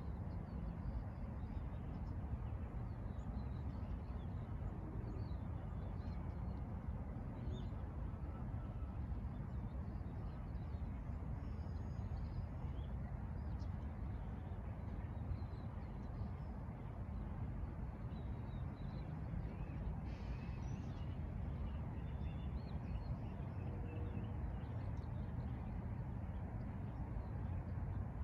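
Steady low outdoor rumble with birds calling here and there.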